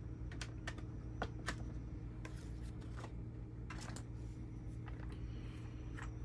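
Light, irregular clicks and rustles of a mechanical keyboard and its USB cable being handled, about a dozen small taps spread unevenly over a steady low hum.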